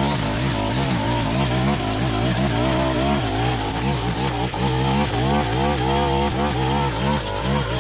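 Honda UMK425L line trimmer's small four-stroke petrol engine running at cutting speed, its pitch rising and dipping over and over as the nylon line cuts through long grass.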